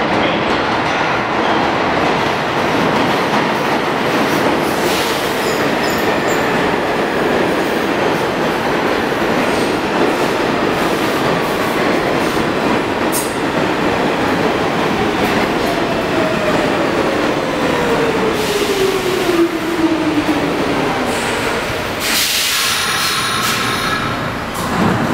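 New York City subway train entering an underground station and braking to a stop: a steady rumble of wheels on rails, with a whine that falls in pitch as the train slows. A loud burst of braking noise comes near the end as it halts.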